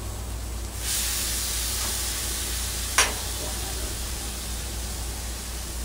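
Chicken, steak and zucchini sizzling on a hot steel flat-top griddle, the hiss growing louder about a second in. About three seconds in comes one sharp clink of a metal spatula against the griddle.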